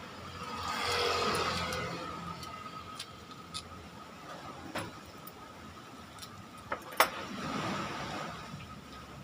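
A vehicle passing by, swelling and fading about a second in, and another passing near the end, with a few light clicks and taps between them, the sharpest about seven seconds in.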